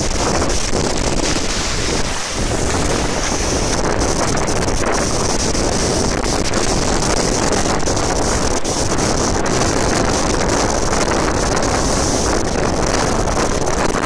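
Loud, steady rush of a waterfall about 120 m high, heard from inside its spray: falling water and water streaming over rocks, with the spray-driven wind buffeting the microphone.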